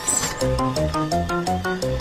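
Cartoon background music: a bouncy melody of short plucked notes over a steady bass and beat, with a brief high sweep at the start.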